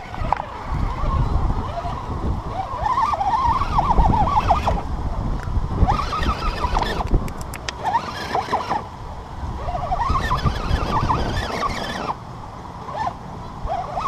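Stock electric motor and gear drive of a 1/10-scale Axial Deadbolt RC crawler whining in short throttle bursts, the pitch rising and falling as it crawls over rocks, over a low rumble on the microphone.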